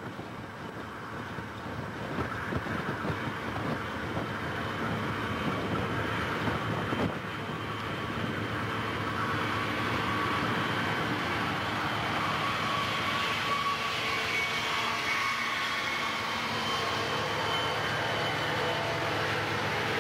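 A Southern Pacific freight train's lash-up of several diesel locomotives approaches and passes under power. The engine sound grows steadily louder over the first half, then holds as a steady drone with a few even tones running through it.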